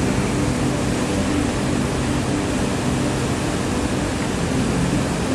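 Steady rush of water pouring over a dam spillway, an even unbroken roar.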